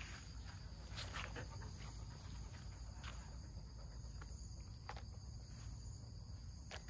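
Steady high-pitched chirring of insects, with a few soft footsteps on gravel about a second or two apart.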